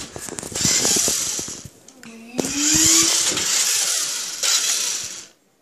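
Electric radio-controlled off-road truck driving across a hard floor, its motor and gears whirring in two runs with a short pause about two seconds in, then stopping suddenly near the end.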